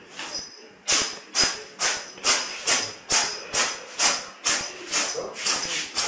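A cat sneezing over and over in a rapid fit: about a dozen short, sharp sneezes at a little over two a second, starting about a second in.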